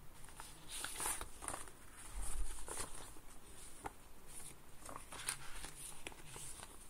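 Quiet room tone with a faint low hum and scattered small clicks and ticks.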